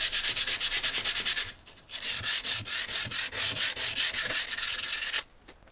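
120-grit sandpaper rubbed by hand in quick back-and-forth strokes over the rusty steel head of a Woodings-Verona boy's axe, taking off rust. The strokes pause briefly about a second and a half in and stop about five seconds in.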